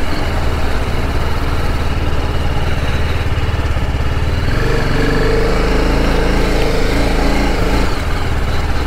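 BMW motorcycle engine running at low road speed, with the note rising and growing stronger from about four and a half seconds in as the throttle opens a little.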